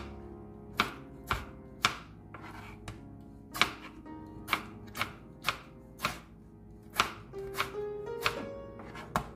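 Kitchen knife chopping tomatoes on a plastic cutting board: a series of sharp, irregular knocks, roughly one to two a second, as the blade strikes through to the board.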